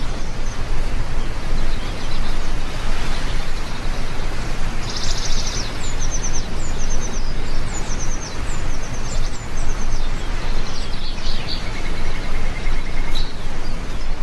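Heavy rain falling in a steady, dense hiss, with small birds chirping and trilling over it again and again; a fast buzzy trill stands out about five seconds in and a lower rattling trill just before the end.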